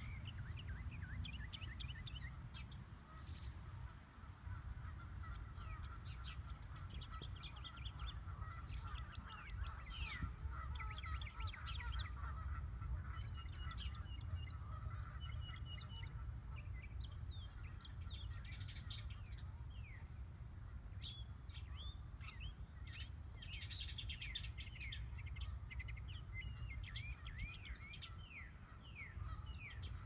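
Several birds chirping and singing, with many short quick calls overlapping and a busy burst of rapid chirps about three-quarters of the way through, over a low steady rumble.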